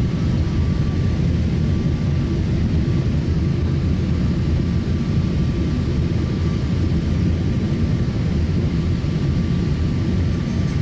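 Steady low rumble inside the cabin of a Boeing 777-300ER on approach with flaps extended: its GE90 engines and the airflow heard from a window seat over the wing, with a faint high steady whine.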